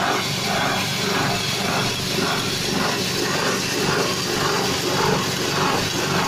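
Corn grinding mill driven by a 6.5 hp gasoline engine, running steadily and grinding corn kernels into meal, with a pulsing about twice a second.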